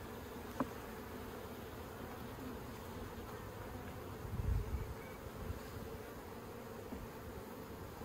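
Honeybees buzzing steadily around an open nucleus hive, a low even hum. A faint click just after the start and a dull low bump about four and a half seconds in.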